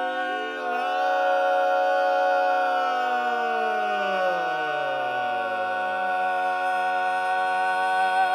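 Barbershop quartet singing a cappella, holding the song's final chord: the upper voices sustain their notes while the bass slides slowly down about an octave, from a couple of seconds in to past the middle, then settles on a low note under the ringing chord.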